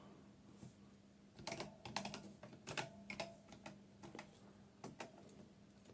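Faint keystrokes on a computer keyboard, a dozen or so scattered clicks typed in short runs, entering a command to fetch the next 100-byte portion of data.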